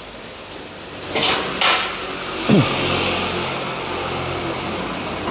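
Two metallic clanks of tools a little over a second in, then a brief falling tone and a steady low machine hum in the workshop.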